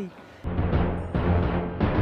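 Music with deep drum hits, starting about half a second in.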